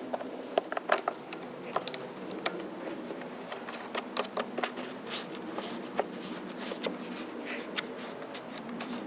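Scattered light clicks and knocks of hand work fitting parts back onto a small engine, the air filter cover going on, over a steady background hum.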